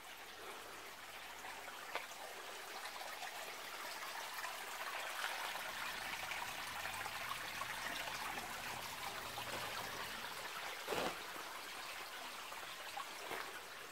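Small stream trickling over stones, a steady gentle water sound that swells a little in the middle. There is a soft knock about two seconds in and another near the end.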